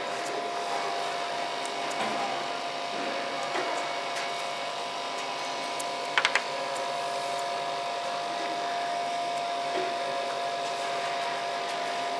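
Steady machine hum with a constant tone from the powered-up laser cutting machine and its running equipment. About six seconds in there are three quick sharp clicks.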